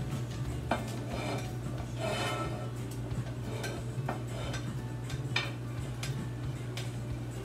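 A spoon clinking and scraping against a plate and a stainless steel pot as ingredients are pushed into boiling water: a few sharp clinks and a short scraping clatter about two seconds in. A steady low hum runs underneath.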